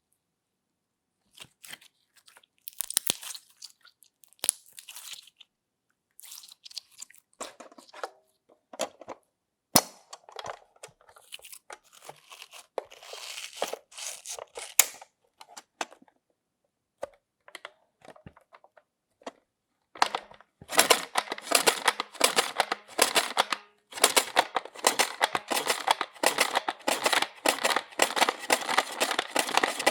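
Slime being squeezed and worked by hand, giving crunchy crackles and clicks: short bursts with pauses at first, then dense, continuous crackling from about twenty seconds in.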